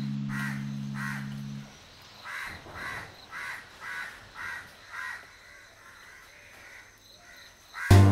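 A crow cawing over and over, about eight harsh caws roughly half a second apart, then falling quiet. A low held musical tone fades out under the first caws, and music comes in right at the end.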